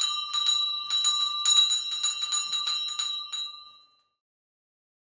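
Small hand bell shaken, about three or four strikes a second with a bright ringing tone. The ringing fades away about four seconds in.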